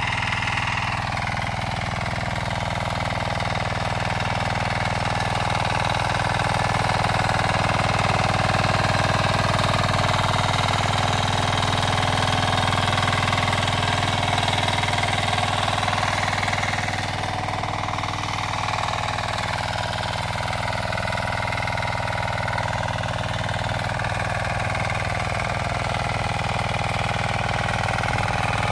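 Diesel power weeder's engine running steadily as its rotary tines churn the soil, with a brief dip and waver in the engine note a little past the middle.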